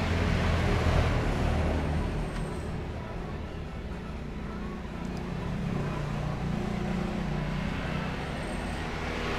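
Road traffic: low engine rumble of passing vehicles, loudest in the first second or two, easing off in the middle and picking up again near the end.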